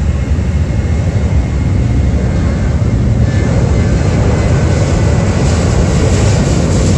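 Loud, steady low aircraft-engine rumble. About halfway through, a higher rushing hiss builds as a Boeing 737 airliner's jet engines speed it along the runway.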